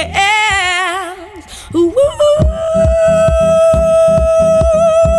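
A woman singing live: she ends a sung line on a note with vibrato, pauses briefly, then holds one long note over a steady rhythmic accompaniment beating about four times a second.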